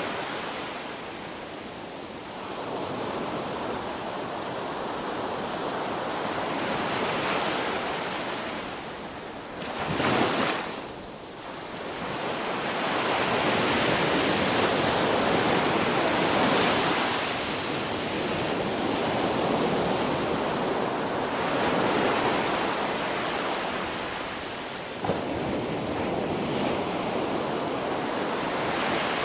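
Ocean surf breaking on a beach: a continuous wash that swells and recedes every few seconds, with one sharp crash about ten seconds in.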